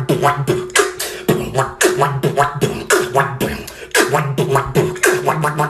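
Human beatboxing: quick vocal kick and snare hits at a steady rhythm of about three to four a second, with a low hummed bass note held under some of the beats.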